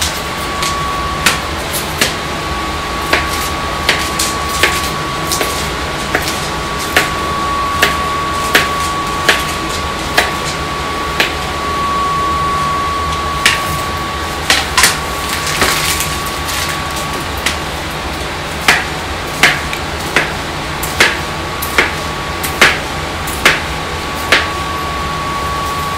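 Kitchen knife slicing through hot dogs onto a plastic cutting board: a steady run of sharp knocks, a little more than one a second, with a short pause about halfway through.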